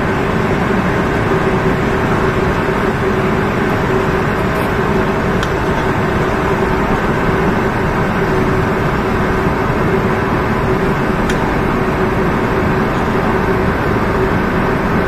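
Steady machinery drone with a constant hum, heard over the even rush of alluvial sand draining out through the bottom of a barge's hold during unloading.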